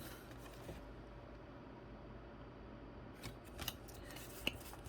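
Faint handling of a Pokémon card booster pack: a few soft crinkles and clicks a little after three seconds in, and one sharper click near the end, as the pack is opened.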